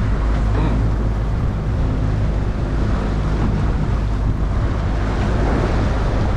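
Small boat's motor running steadily as a low hum, under wind buffeting the microphone and the rush of choppy sea.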